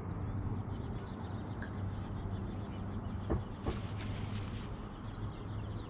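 Outdoor background of a steady low hum with faint bird calls, broken by two sharp clicks a little over three seconds in, about half a second apart.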